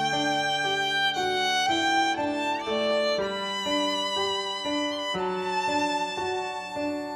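Background music: a melody of notes that change about every half second, moving over held lower notes.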